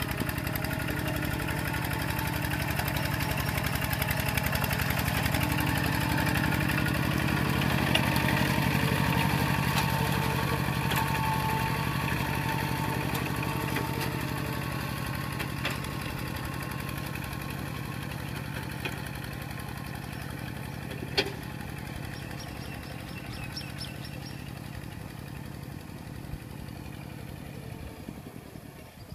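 Kubota two-wheel walking tractor's single-cylinder diesel engine running steadily under load as the machine drags through deep paddy mud, loudest about a third of the way in and then fading as it moves away. A single sharp click about two-thirds through.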